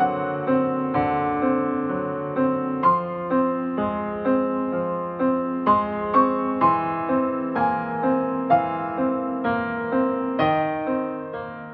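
Slow piano music, a melody of single notes about two a second over sustained lower notes.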